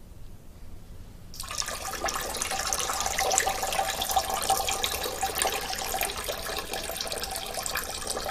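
A steady stream of urine splashing into a toilet bowl, starting about a second and a half in and running on without a break.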